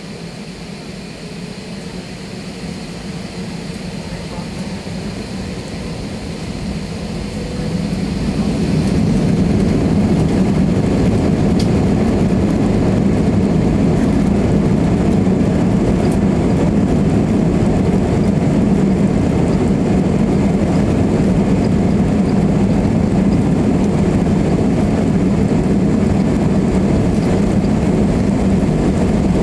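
Aeroplane engines powering up for take-off, growing louder and stepping up sharply about eight seconds in. After that they hold a steady, loud, deep rumble of engine and rolling noise.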